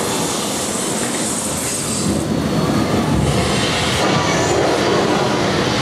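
A train running on rails: a steady, loud noise, with a high hiss over about the first two seconds.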